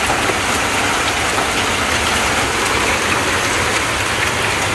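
Hailstorm: heavy rain mixed with falling hailstones, a steady dense hiss with many small ticks of stones striking surfaces.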